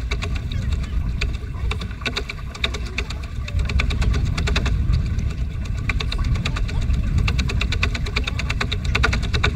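Wind rumbling on an action camera's microphone aboard a paddle boat, with a dense run of small clicks over the rumble.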